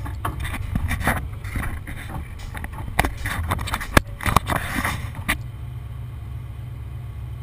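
Heavy truck engine running steadily, with scattered knocks and clanks over the first five seconds or so that then stop.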